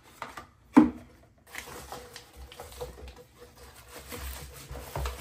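Cosmetic packaging being handled by hand: a single sharp knock about a second in, then soft rustling and light clicking as products are moved about.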